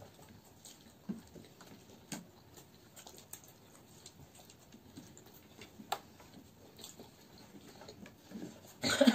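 Quiet eating sounds: people chewing french fries eaten by hand, with scattered small clicks from fingers picking at the plates. A louder sudden noise comes right at the end.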